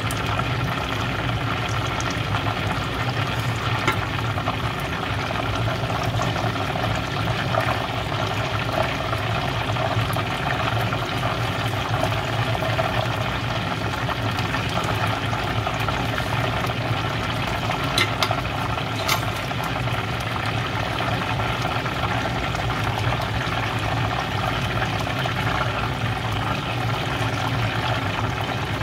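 Whole chicken deep-frying in a pot of hot oil, the oil bubbling and sizzling steadily. A couple of sharp clicks come a little past the middle.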